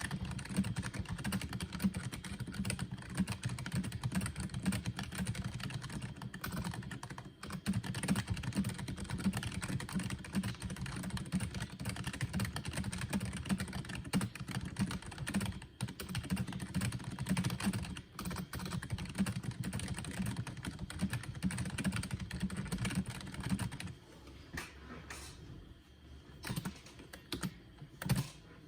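Fast, continuous typing on a SteelSeries Apex 3 membrane gaming keyboard at about 100 words a minute, the keystrokes carrying a twang. A little before the end the steady typing stops, and only a few scattered key presses follow.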